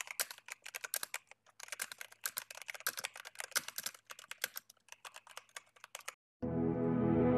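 Keyboard typing sound effect: rapid, irregular clicks that stop about six seconds in. Music starts shortly before the end.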